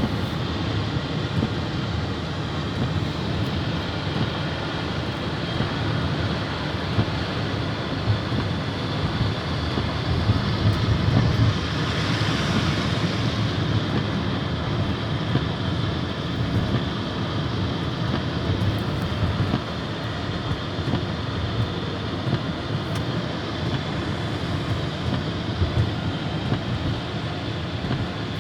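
Steady low rumble of outdoor city street noise, swelling briefly about twelve seconds in.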